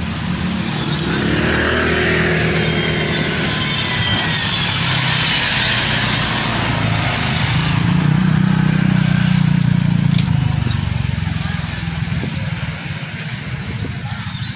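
Road traffic: vehicle engines passing on the street, swelling about two seconds in and more loudly around eight to ten seconds in.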